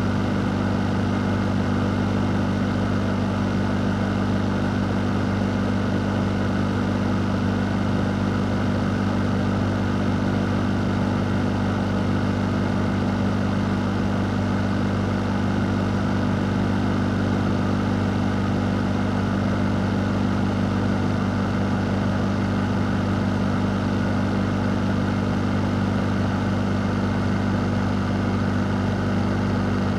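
Electric fan running continuously: a steady low hum under an even rush of air, unchanging throughout.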